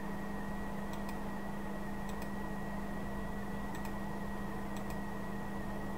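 Several sharp computer mouse clicks, some in quick pairs, over a steady electrical hum.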